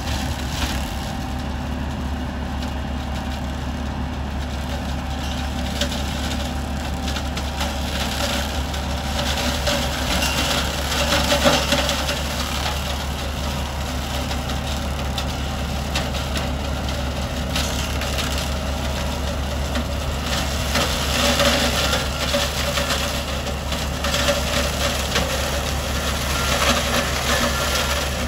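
Fendt 716 Vario tractor's six-cylinder engine running steadily under load while the McConnell 8085tt flail hedge cutter's head shreds hedge branches. Over the low engine drone comes a constant crackle and splintering of wood, louder in stretches near the middle and again near the end.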